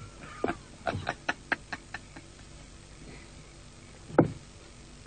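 A quick run of about eight sharp clicks and knocks, then a single heavier knock about four seconds in.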